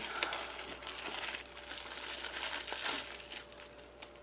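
Packaging crinkling and rustling as a small folding knife is unwrapped by hand, dying away after about three seconds.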